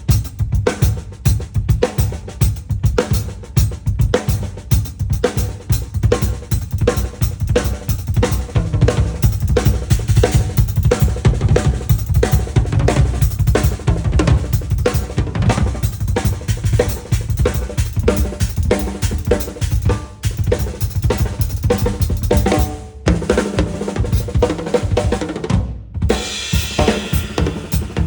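Drum kit played in a fast, busy groove of bass drum, snare and cymbals for a sound check, with two brief stops near the end.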